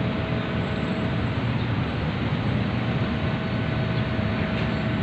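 Steady low rumble of a docked ro-ro passenger ferry's machinery, with a faint steady hum over it.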